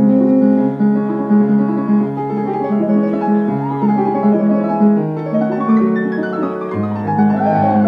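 Piano music played on an electronic stage keyboard: chords over a repeating bass line, with a quick run of falling notes about six seconds in.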